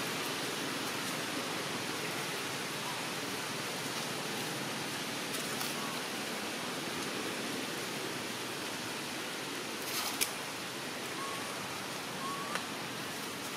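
Steady, even hiss of outdoor ambience, with a sharp click about ten seconds in and two faint short rising chirps near the end.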